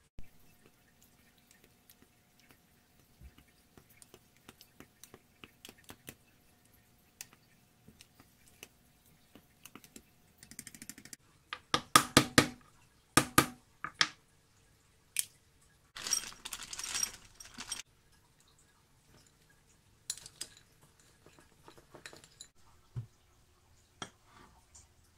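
Wooden mallet knocking pecans on a wooden cutting board to crack their shells: a quick run of sharp knocks a little before midway and one more shortly after, then a longer crunchy rattle as the shells are broken apart. Fainter clicks and clatter of kitchen handling before and after.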